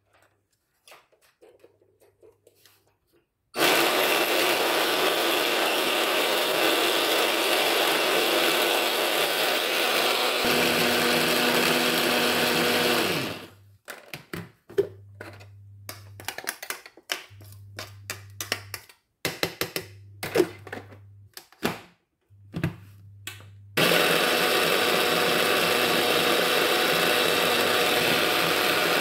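Electric hand-blender mini chopper running under load, chopping chillies, tomato and onion into sambal paste. It starts a few seconds in and runs steadily for about ten seconds, stops for a stretch of brief clicks and knocks, then runs again near the end.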